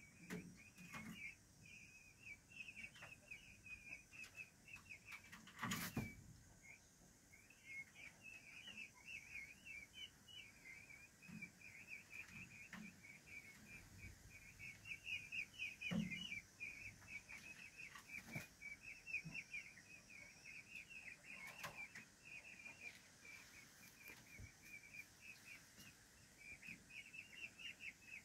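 Faint, nearly continuous soft peeping of white peachicks, many quick chirps in a run, with a few faint knocks.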